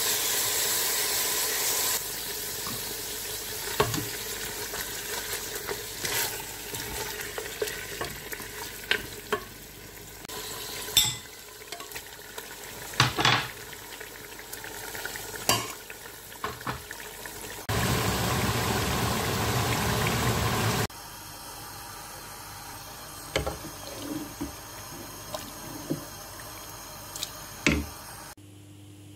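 Mutton frying in an aluminium pot: a steady sizzle with scattered sharp knocks and scrapes of a spoon stirring against the pot. The sizzle jumps abruptly in level several times.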